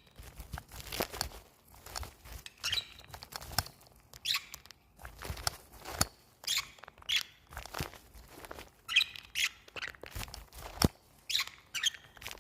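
Pet budgerigars chirping in short, scattered calls, mixed with sharp clicks and taps.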